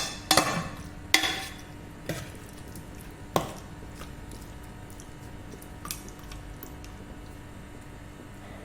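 Metal pan and spoon clanking: four sharp knocks in the first three and a half seconds, then only a faint steady hum.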